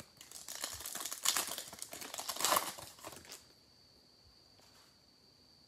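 Plastic trading-card pack wrapper crinkling as football cards are handled, a dense crackle of small clicks that stops about three and a half seconds in.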